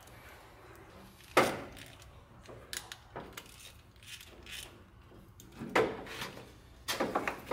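Metal clinks and taps of a battery terminal clamp and its bolt being handled and fitted onto the battery, with a sharp clink about a second and a half in and a quick run of clicks near the end.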